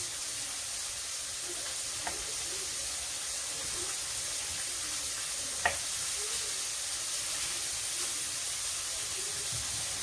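Mushrooms sizzling steadily as they fry in a pan. Two sharp knocks come through it, a faint one about two seconds in and a louder one a little past halfway.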